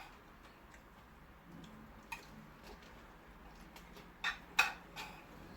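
A few light clicks of a spoon against a plate while eating, the two loudest a little over four seconds in.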